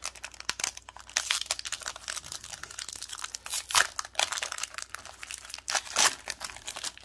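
A foil Pokémon booster-pack wrapper crinkling in the hands and being torn open across the top: a dense run of sharp crackles, with two louder rips, one about halfway through and one near the end.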